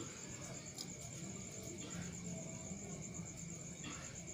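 Steady high-pitched insect trill, pulsing evenly throughout, with a few faint clicks from eating by hand off a plate.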